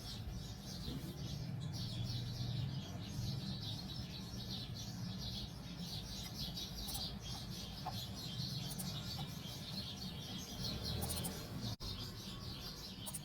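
Continuous chirping, like small birds, over a steady low hum; the sound drops out for an instant near the end.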